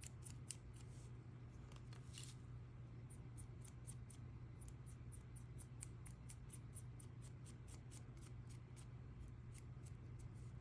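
A small flat paintbrush scratching quickly against a plastic scale-model tank road wheel, about four short strokes a second, working pigment off the hub. A low steady hum runs underneath.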